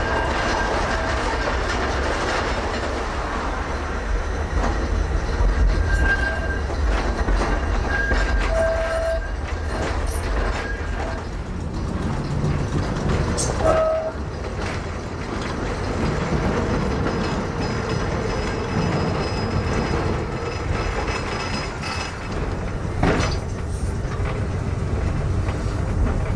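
Vintage vicinal (light-railway) tram running along its track, heard from on board: a steady low rumble of wheels on rail, with a few brief high tones here and there.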